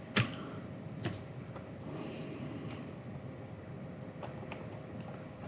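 A few computer keyboard keystrokes, one sharp click just after the start and another about a second in, then fainter scattered clicks, over a steady low room hum.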